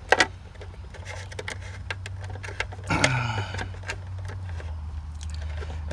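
Small clicks and rustling of thin electrical wires being fed into a plastic outdoor enclosure, over a steady low hum. A brief voice-like sound comes about three seconds in.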